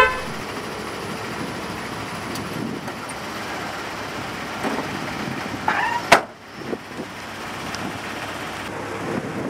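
Steady street traffic noise, with a sharp click about six seconds in.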